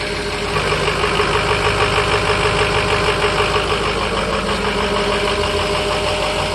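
A 2005 Ford F-350's 6.0 Powerstroke turbo V8 diesel idling steadily with an even, rapid diesel clatter after a cold start. Its injectors have been treated with Archoil AR9100 for stiction, and the owner says the treatment worked pretty damn good.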